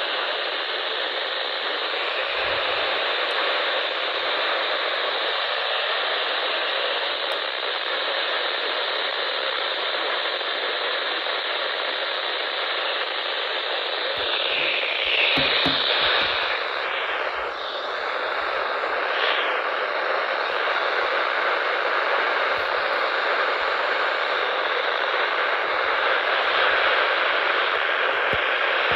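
Radio static: a steady hiss from a radio receiver with no clear signal, with a few short squeals about halfway through.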